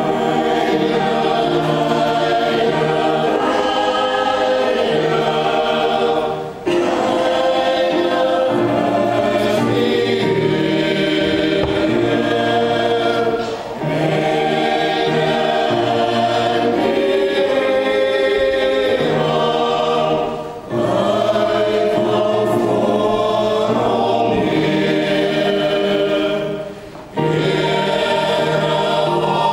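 Small mixed church choir singing a church song in parts, accompanied by an electronic keyboard. The singing comes in phrases of about seven seconds, each ending in a brief dip before the next begins.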